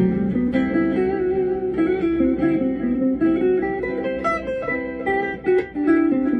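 Guitar playing a melodic line on the Lydian pentatonic scale, single plucked notes over a backing of sustained chords that vamp between C major and D major.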